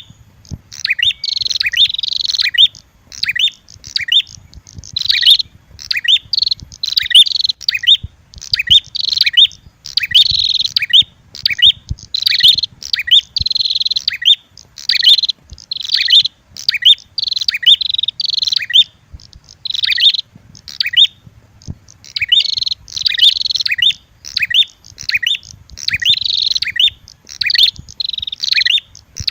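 Lure-call recording of red-headed prenjak mixed with agitated female prenjak calls: fast, sharp chirping notes repeated in dense runs, with a short break about twenty seconds in.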